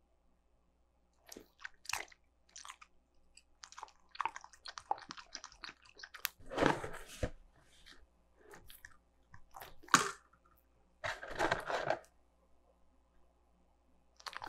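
Shiba Inu biting and chewing food in short, irregular bouts with quiet gaps between, the sharpest bite about ten seconds in.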